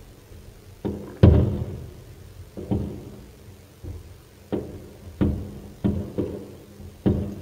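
Aerial firework shells bursting in an irregular series of about eight bangs, each a sharp crack followed by a low rolling echo; the loudest comes about a second in.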